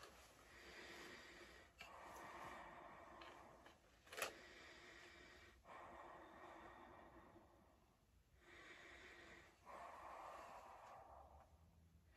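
Faint, slow, heavy breathing through a latex Michael Myers mask, a series of in-and-out breaths of one to two seconds each. A single sharp click about four seconds in.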